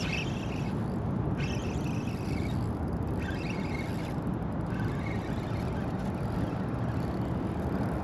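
Steady low rumble of wind and river current on the boat, with short bursts of a high whir from a fishing reel being cranked as a hooked fish is reeled in, several times in the first half.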